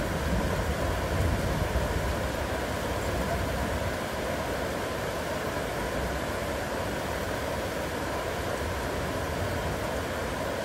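Heavy rain falling steadily, an even hiss, with a low rumble underneath that eases off about four seconds in.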